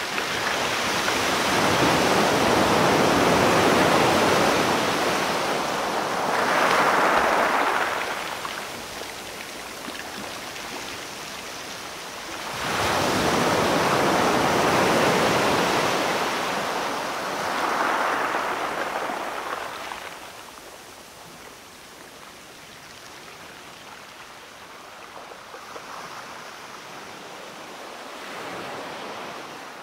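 Sea surf: waves breaking and washing up the shore. Two big waves surge in during the first two thirds, with quieter wash between them, and smaller waves follow near the end.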